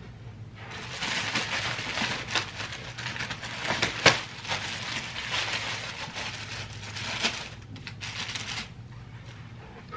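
Plastic wrap of a toilet paper multipack crinkling and tearing as it is pulled open and rolls are pulled out, with a sharp louder crackle about four seconds in. It stops shortly before the end, leaving a low steady hum.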